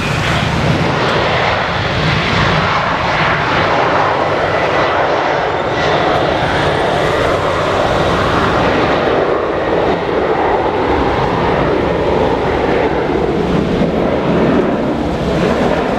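Jet airliner engines running loud and steady as a plane passes on the runway.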